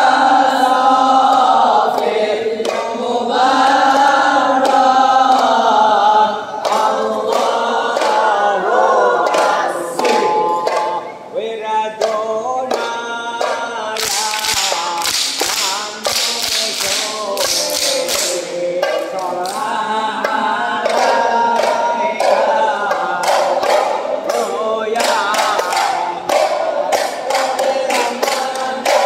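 A group of voices singing sholawat together in Ishari style, with hand-struck terbang frame drums beating along. About halfway through, the singing gives way for a few seconds to a stretch of fast, dense beating, and then the song resumes.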